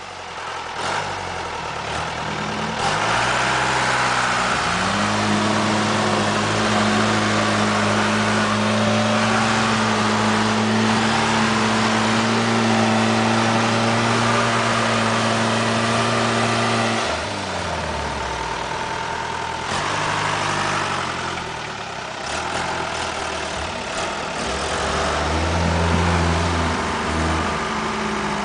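Off-road 4x4 engines working hard under load during a rope tow out of a river. One engine climbs in revs over the first few seconds, holds a steady high rev for about twelve seconds, then drops back. The revs rise again briefly near the end.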